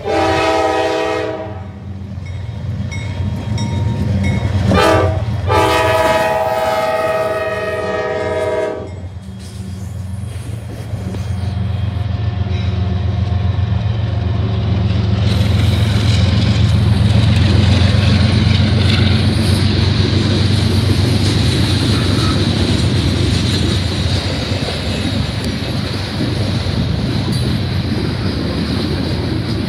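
Diesel freight locomotive air horn sounding for the crossing: the tail of a long blast, a short blast, then a final long blast that ends about nine seconds in. The CSX locomotives' diesel engines then rumble past, loudest about halfway through. Loaded coal hopper cars follow, rolling by with steady wheel-on-rail noise.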